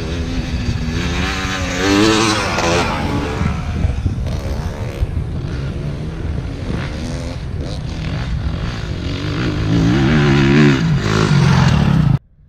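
Off-road motorcycle engines revving up and down as riders pass along the track, loudest about two seconds in and again near the end, over a steady wind rumble on the microphone. The sound cuts off abruptly just before the end.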